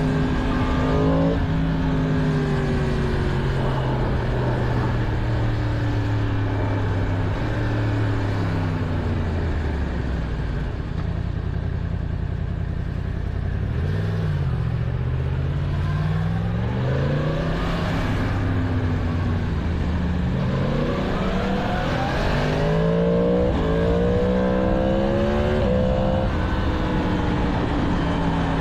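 2022 Yamaha MT-10's crossplane inline-four running through its stock exhaust while riding. The engine note falls away over the first ten seconds or so as the bike slows, blips briefly, then rises again and climbs through several quick upshifts in the last third.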